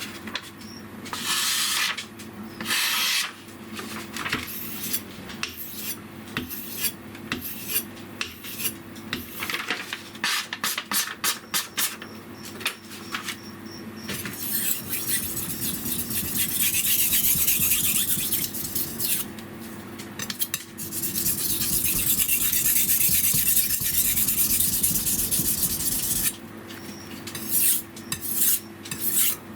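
Steel kitchen knife blade scraped back and forth on a Naniwa #1000 medium-grit whetstone: a run of short rasping strokes, then long stretches of fast continuous grinding in the middle, then short strokes again near the end.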